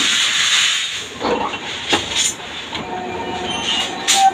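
Rebar bending machine bending a bundle of steel bars into stirrups: a rushing hiss at first, then sharp metal clanks of the bars against the bending pin and disc, with a faint steady whine from the machine in the second half.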